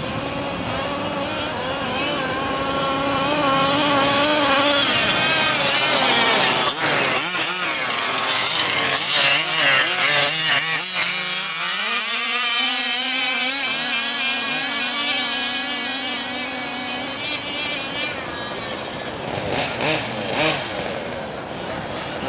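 Small two-stroke engine of a 1/5-scale gas RC buggy running hard, its revs climbing and dropping as it is driven off-road, with a steep fall in pitch about halfway through before it settles at lower revs.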